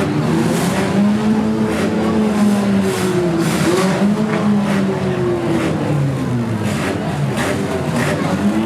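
Four-cylinder demolition derby cars running and revving together, their engine pitch rising and falling, with repeated short knocks as the cars hit one another.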